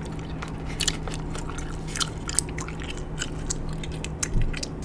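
Bubble gum being chewed close to the microphone: irregular wet smacks and clicks, about three a second, over a steady low hum.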